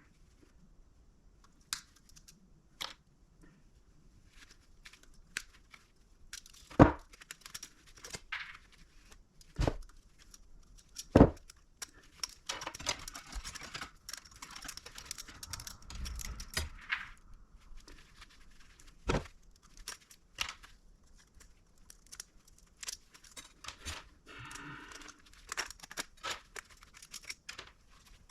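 Scrap being stripped and handled by hand: scattered sharp clicks and knocks of metal pieces, with several seconds of scraping and tearing near the middle.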